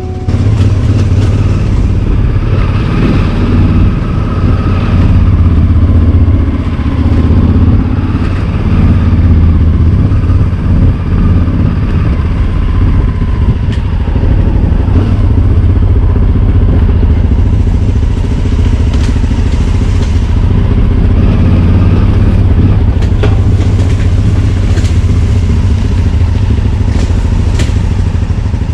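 Off-road motorcycle engine running steadily over a rough dirt single track, heard from on board the bike, with occasional sharp knocks and clatter, more of them in the second half.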